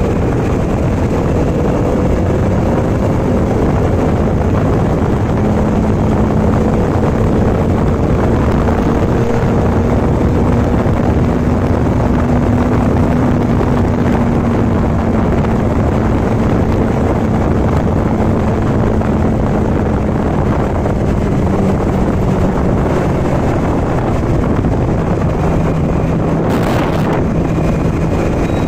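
Bajaj Dominar 400's single-cylinder engine running at a steady highway cruise under heavy wind rush on the microphone. Its low engine note rises a little a few seconds in and eases off again later. A brief knock comes near the end.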